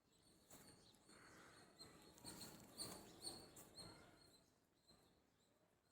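Faint outdoor ambience with a series of short, high bird chirps, bunched mostly around the middle, over a low rustle.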